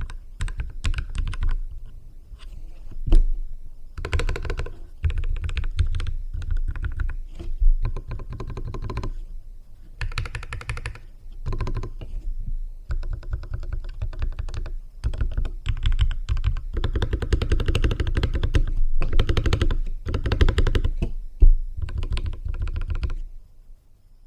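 Keychron K6 mechanical keyboard with lubricated Keychron Mechanical Red linear switches being typed on in bursts of rapid keystrokes, with short pauses between runs and a few louder single strikes. The typing stops about a second before the end.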